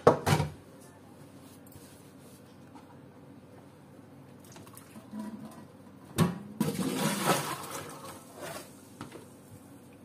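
Boiled beans draining in a plastic colander over a steel kitchen sink. There is a clatter at the start, then a knock about six seconds in, followed by water splashing into the sink for about two seconds.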